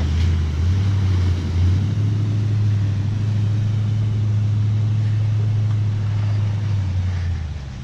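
Vehicle engine running steadily with a low rumble as it drives through a creek crossing, fading away near the end.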